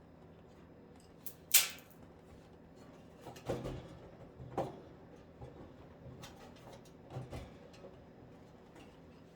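Handling noise during repair work: one sharp click about a second and a half in, then a few duller knocks and clunks, over a faint steady hum.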